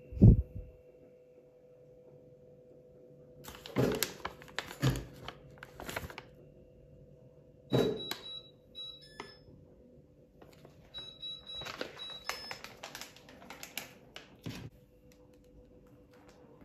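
Kitchen handling sounds: a heavy thump right at the start, then bursts of clicking and clattering of dishes or utensils, some with brief ringing, over a steady low hum.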